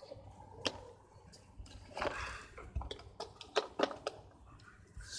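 Cardboard toy box being opened by hand: scattered light clicks and taps, with a short stretch of rustling about two seconds in.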